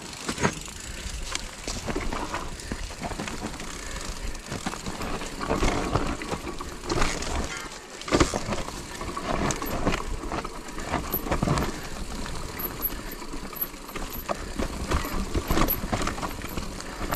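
Electric mountain bike rolling over a bumpy dirt trail carpeted with fallen leaves: tyres rustling through the leaves, with repeated sharp knocks and rattles from the bike over the bumps.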